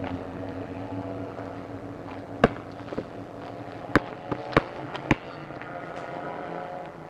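Television being smashed: about six sharp impacts about two and a half to five seconds in, over a steady low hum.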